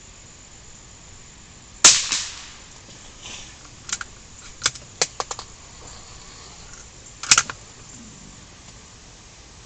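A gunshot about two seconds in, followed by a run of lighter clicks and another sharp report about seven seconds in. The gun is firing ammunition it groups poorly with, which the shooter suspects is down to the ammo's age.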